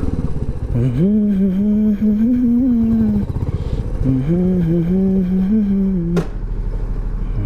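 Motorcycle engine running at low speed with a steady low pulse while a man hums two long, wavering notes over it; a sharp click about six seconds in.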